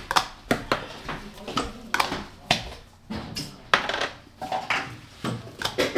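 Dishes and utensils being handled, giving an irregular run of sharp clinks and knocks.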